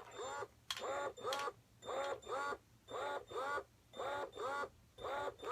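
Ameda Purely Yours electric breast pump running in letdown mode: a quick, even pumping cycle, its motor whining up and down with each stroke at roughly two strokes a second.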